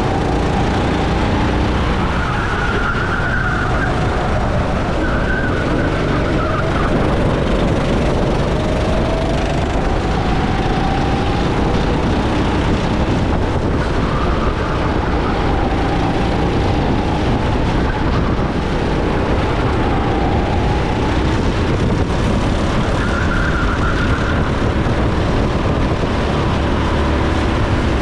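Go-kart engine running hard through a race lap, its pitch repeatedly rising and falling as the kart accelerates and brakes, over a steady rush of wind and track noise.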